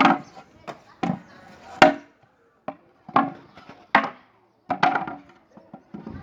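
A tool striking wood in a joinery workshop: sharp, separate blows at an uneven pace of about one a second, typical of chopping or hammering wood by hand.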